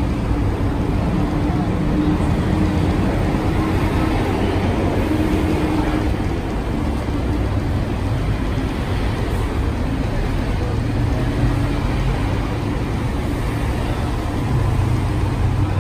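Steady low rumble of road traffic, with the constant hum of a vehicle engine running nearby.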